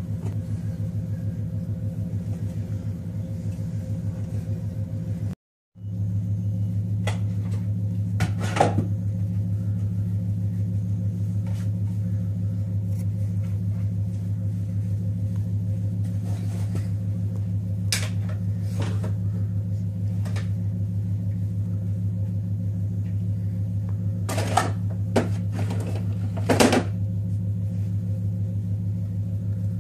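A steady low mechanical hum, cut by a brief dropout about five seconds in, with a few faint clicks and knocks over it.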